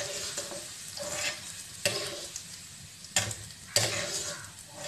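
Ghee sizzling in a wok as a metal ladle stirs and scoops out frying cashews and raisins, with three sharp knocks of the ladle, about two, three and nearly four seconds in.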